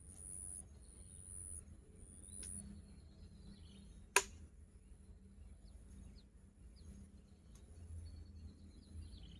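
Birds chirping faintly over a steady high insect trill and a low, even rumble, with one sharp click about four seconds in.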